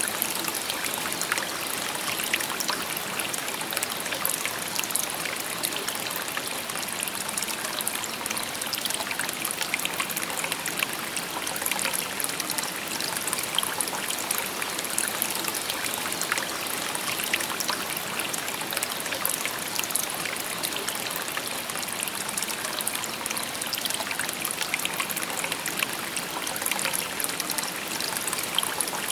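A shallow river babbling and trickling over stones: a steady, even rush of water with fine, quick splashes.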